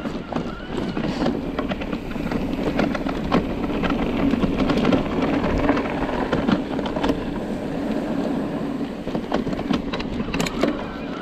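Loaded mountain bike ridden over a rough trail: steady tyre and riding noise with a hum underneath, and many small clicks and knocks.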